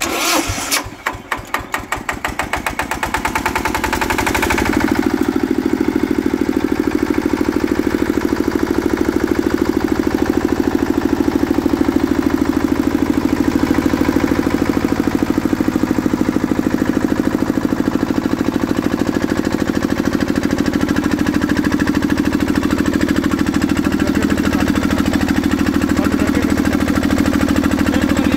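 Field Marshal 10 hp single-cylinder air-cooled diesel engine on a generator set, started with its electric self-starter. It fires, and its beats come quicker over the first four seconds or so; it then settles into steady running at speed.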